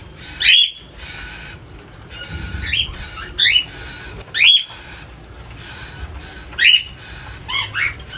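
Aviary birds calling: about six loud, short squawks, each rising in pitch, over a steady background of fainter chattering from the flock.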